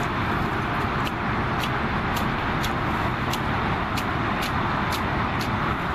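Steady background noise of distant road traffic, with a short, sharp high tick repeating about twice a second.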